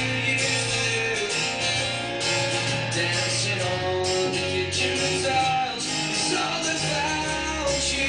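Pop-rock music with strummed guitar, singing and a steady beat.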